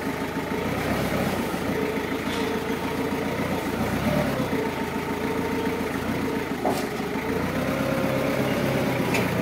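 Linde counterbalance forklift engine running steadily as the truck manoeuvres, with a whining tone that rises and falls and a few light clicks.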